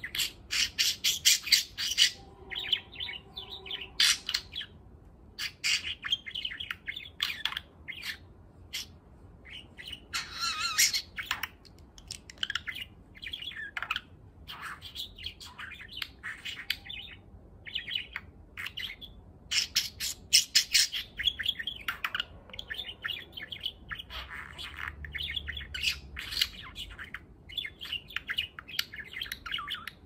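Eight-month-old male budgerigar chirping and warbling: a long run of short, high chirps and chatter, with louder spells about a second in, around ten seconds and around twenty seconds.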